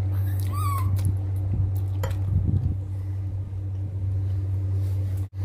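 A short high cry, rising and then falling, about half a second in, over a steady low hum.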